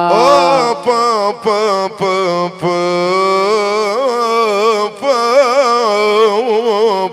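Ornamented Middle Eastern melody line, wavering and winding in pitch, over a steady held drone, in the wordless stretch between mawwal lines.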